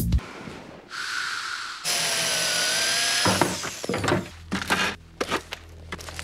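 A power drill running: a short burst about a second in, then a steady whine for about a second and a half, cutting off into a string of sharp clicks and knocks.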